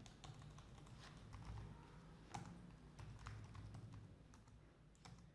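Faint typing on a computer keyboard: irregular, scattered keystrokes, some in short runs.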